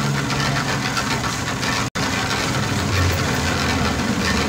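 An engine running steadily at idle, with a brief dropout in the sound just before two seconds in.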